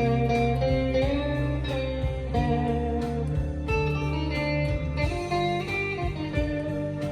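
Squier Bullet Stratocaster electric guitar played through a Fender Mustang LT25 amp on its clean channel: single notes and chords ringing out clean, without distortion, with some slight bends in pitch.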